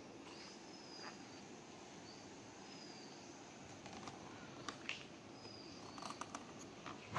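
Faint light clicks and taps of a small plastic handlebar clamp being handled and fitted to a motorcycle handlebar, a few past the middle and near the end, with faint high bird chirps in the background.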